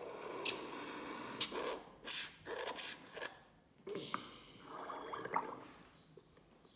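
Purple rubber pipette bulb being squeezed and released in foaming citric acid and baking soda solution, squelching and gurgling with air and liquid. It comes in a run of short bursts, then another cluster after a brief pause about four seconds in.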